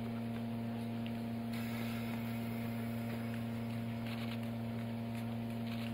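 JNR Class D51 steam locomotive standing with steam up, giving a steady hum. A high hiss of steam comes in about a second and a half in.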